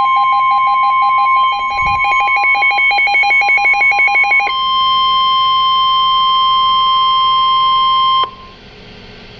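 Emergency alert tone announcing a severe thunderstorm warning: a steady, high single tone of the NOAA Weather Radio warning-alarm kind. It sounds for about eight seconds, with a rapidly pulsing lower beep layered over it for the first four and a half seconds. The tone cuts off sharply, leaving faint hiss.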